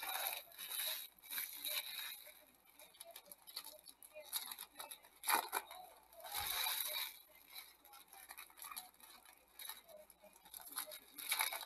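Foil wrappers of Bowman baseball card packs crinkling and tearing in the hands, in short scattered bursts of crackle, as the packs are opened.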